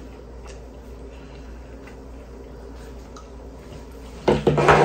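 Quiet eating sounds: soft scattered clicks from chewing and from fingers pulling at a slice of pizza. A loud, short burst of sound comes near the end.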